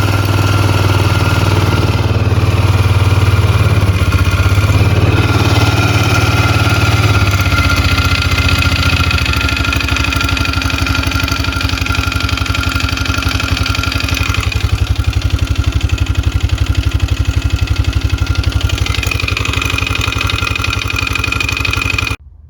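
2002 Polaris Magnum 500 ATV's single-cylinder four-stroke engine running with a fast, even pulse: a little louder for the first several seconds, then a steady idle, cutting off abruptly near the end. The engine smokes and has a knock that the owner is trying to trace.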